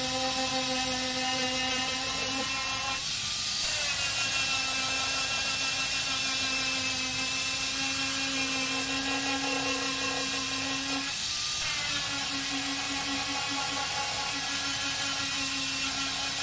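Handheld angle grinder with an abrasive disc grinding paint off a dented steel car door down to bare metal, its motor whining steadily. Twice, about three seconds in and again near eleven seconds, the whine drops in pitch and climbs back.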